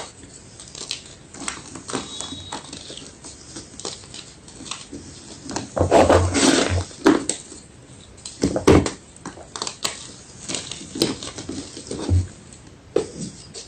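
White gym chalk crunching close up: a run of small sharp crackles, with louder crunches about six seconds in, near nine seconds and near twelve seconds.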